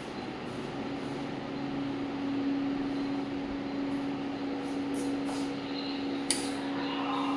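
A steady motor hum with one strong low tone that swells a little after about a second, with a sharp click about six seconds in.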